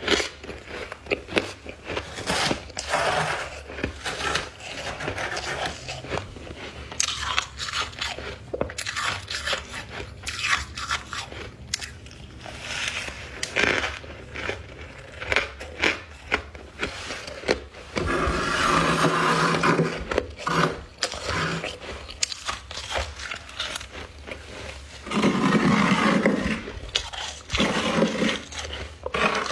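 Close-up crunching and chewing of chunks of white freezer frost and ice: irregular bites and crackles throughout, with two longer, louder stretches of crunching about two-thirds of the way in and near the end.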